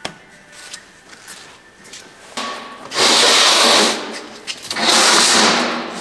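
A steel plate being dragged across a perforated steel welding table: metal scraping on metal, twice, each scrape about a second long, after a few light clinks.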